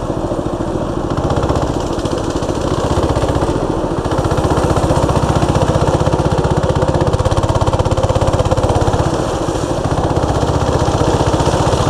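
Mini bike engine running hard at a fast, even beat while riding through a deep muddy puddle, with water sloshing and splashing around the wheels. The engine grows a little louder about a second in and eases off near the end.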